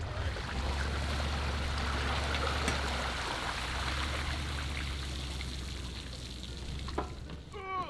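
Water pouring and trickling off a pontoon boat's tubes and trailer back into the lake as it is hauled up the ramp, a steady splashing hiss. A low steady hum runs underneath and fades out near the end.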